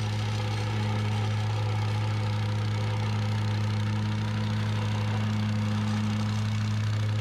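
Vibratory plate compactor's small gasoline engine running steadily while the plate compacts the dirt-and-gravel subgrade, a steady low drone.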